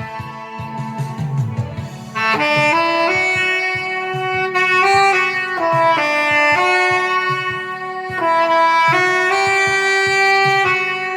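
Saxophone playing a slow song melody in long held notes over an accompaniment with a steady beat; the saxophone line comes in strongly about two seconds in.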